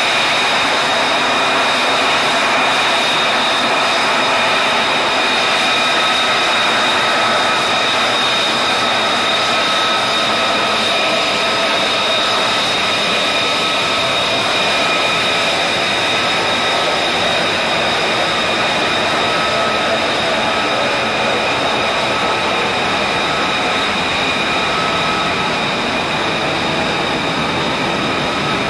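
F-35B Lightning II's jet engine running at taxi power: a steady, loud rush of jet noise with a high-pitched turbine whine made of several held tones.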